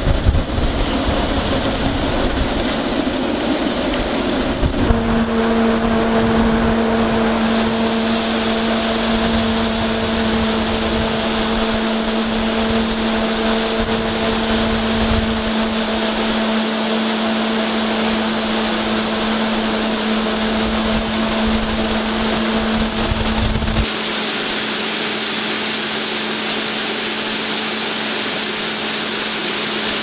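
A grain auger driven by an Allis-Chalmers D-17 tractor runs with a steady, even hum that sets in about five seconds in, over the hiss of shelled corn pouring from a gravity wagon into the auger hopper. Wind rumbles on the microphone until near the end.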